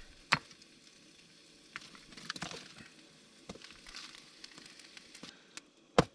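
Sharp wooden knocks as the burning split-log pieces of a Swedish stove are knocked apart, the loudest near the end, over faint crackling of the fire.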